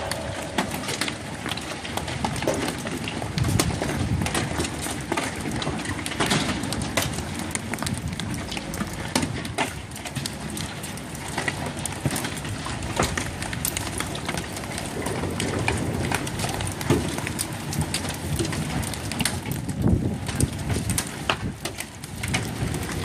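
Storm wind buffeting the microphone: a steady rushing noise full of crackles and pops.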